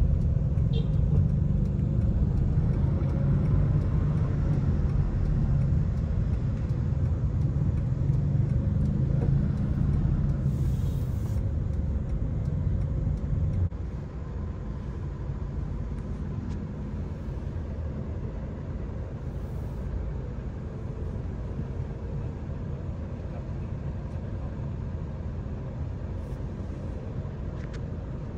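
Steady low rumble of a moving car's engine and road noise heard from inside the cabin. It drops suddenly to a quieter level about halfway through.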